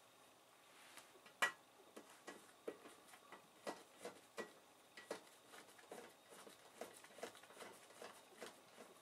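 Hand-turned Torx screwdriver driving a screw into a dishwasher's lower guard: a run of faint small clicks, about two or three a second, with one sharper click about one and a half seconds in.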